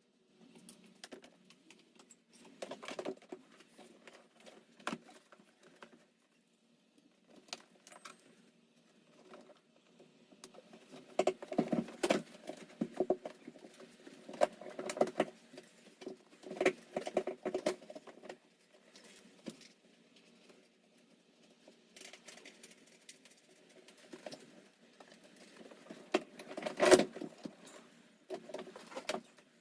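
Irregular clicks, knocks and rattles of hands working with hard parts or tools, busiest in the middle and with one sharp knock near the end, over a faint steady hum.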